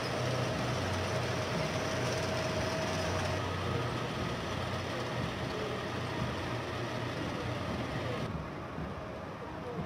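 Engines of a column of eight-wheeled armoured personnel carriers running as they drive past: a steady low engine hum under a broad noise, the higher noise dropping away about eight seconds in.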